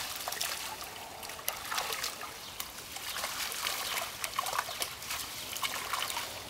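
Water trickling and splashing in irregular small drips as a drag net is worked through a pond.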